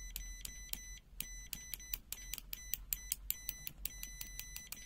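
ANENG 616 multimeter's continuity beeper giving rapid short, high-pitched beeps, several a second with brief pauses, each time the test probes make contact in manual continuity mode. The beeper responds fast.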